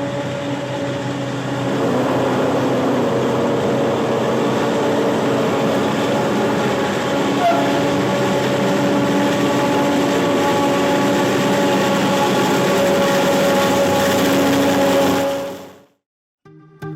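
Heavy diesel farm machinery running at steady revs, a constant engine drone with a few fixed tones over a rushing noise; it cuts off abruptly near the end.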